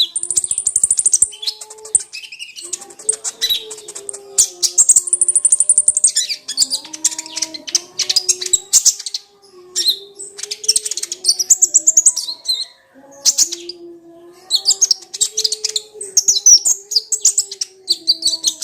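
Kolibri ninja sunbird singing: repeated bursts of rapid, high-pitched twittering and trills with short pauses between phrases. A low tone that slowly shifts in pitch runs underneath.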